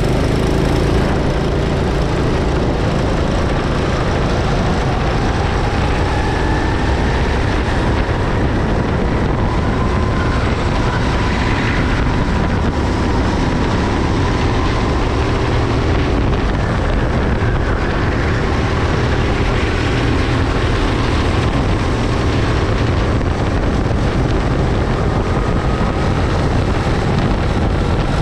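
Go-kart engine running at racing speed, its pitch rising and falling slowly as the kart speeds up and slows for corners, with wind rumbling over the microphone.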